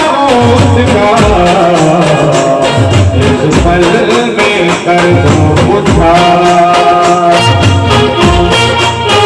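Khandeshi brass band playing a wavering melody over regular drum beats and a bass line that comes and goes.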